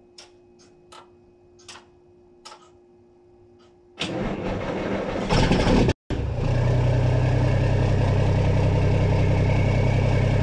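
Mack semi truck's diesel engine being started. A few sharp clicks come first, then about four seconds in the starter cranks, the engine catches, and it settles into a steady run.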